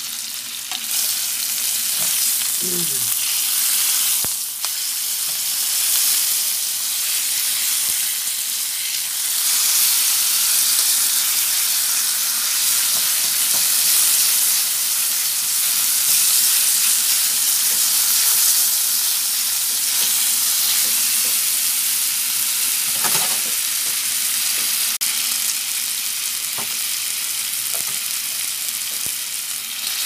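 Thick slices of pork searing in a little oil in a pan, with a steady sizzle.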